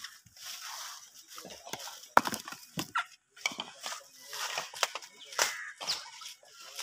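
Dehusked coconuts knocking and clattering against one another as they are tossed and handled on a pile, in irregular knocks, the loudest about two seconds in.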